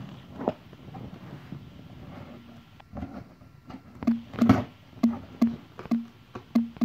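Scissors snipping through packing tape on a cardboard box: a few scattered clicks, then from about halfway a quick series of short, sharp snips, about two to three a second.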